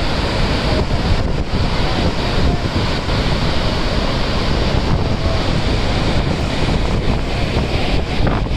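Steady rushing of the GaganaChukki waterfall on the Kaveri River, with wind buffeting the microphone.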